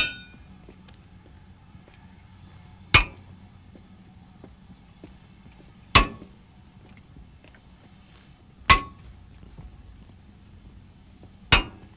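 Wheel tapper's long-handled hammer striking steel railway wheels held by their brakes, testing them for cracks: five sharp metallic clanks about every three seconds, each with a short ring.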